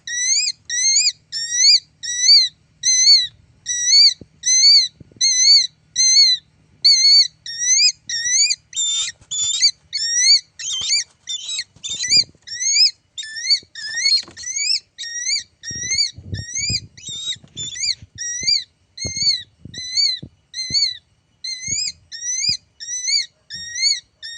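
A bird calling over and over, a short rising call about twice a second; for a few seconds in the middle the calls turn harsher and rougher. Low knocks come in under the calls in the later part.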